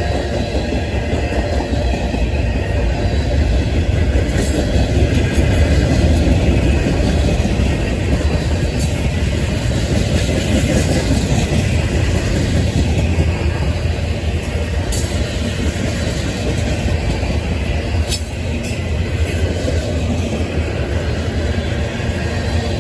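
Cars of a CSX manifest freight train rolling past, a loud steady rumble of wheels on rail with a few sharp clicks along the way.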